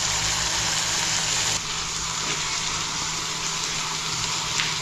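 Chopped beans and vegetables sizzling in a steel kadai over a gas flame, a steady hiss that drops a little about a second and a half in.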